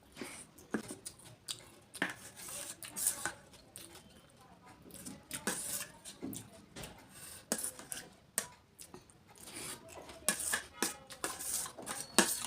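Crisp golgappa (pani puri) shells crunching in irregular sharp crackles as they are bitten and chewed, with light clinks of utensils against a plate.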